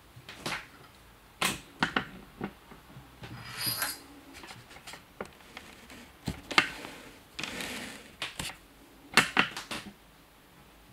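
A kitten's paws and claws scrabbling and tapping on a wooden tabletop as it plays: irregular clicks and knocks with a few short scuffs.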